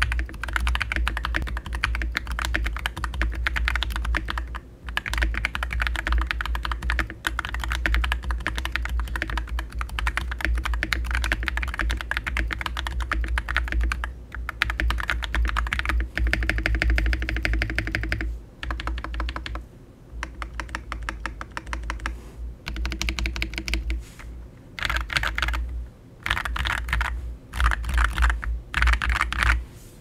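AWS68 mechanical keyboard with lubed Akko CS Ocean Blue tactile switches and PBT Cherry-profile keycaps being typed on fast with both hands: a dense stream of key clacks broken by short pauses. Near the end the typing comes in shorter, separate bursts.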